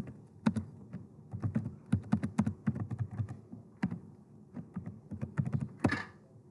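Computer keyboard typing: irregular runs of quick keystrokes as a terminal command is entered.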